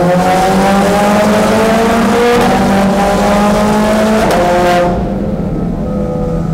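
Ferrari V8 accelerating hard in a road tunnel, its note climbing steadily through the revs with a brief break about four seconds in. Just under five seconds in the throttle comes off and the engine runs on quieter at a lower, steady pitch.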